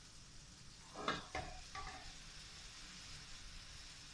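Faint steady sizzle of sliced onions and tomatoes heating in a little water in an aluminium kadhai over a high flame, with a few brief louder sounds about a second in.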